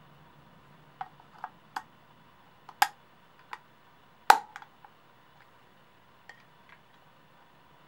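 An AA battery being pressed into the plastic battery holder of a quartz clock movement: a string of sharp clicks and knocks at uneven spacing, the loudest about four seconds in as the battery is pushed home.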